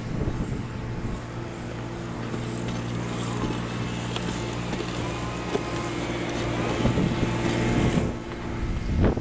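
Soft-wash spray hissing out of a wand onto clay roof tiles, over a steady low machine hum.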